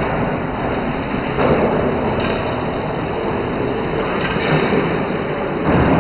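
Wood shaving mill running steadily, a dense, even machine noise, swelling briefly about a second and a half in and again near the end.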